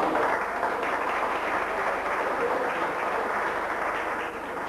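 Audience applauding, steady and then tailing off slightly near the end.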